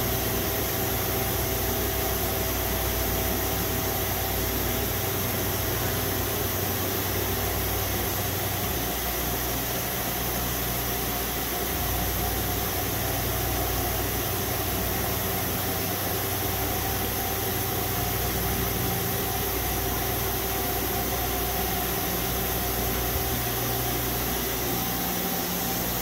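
Nakamura-Tome WT-300 CNC turn-mill center running, a steady machine hum and hiss with a few steady whining tones, as the upper turret's milling head is swung on its B axis.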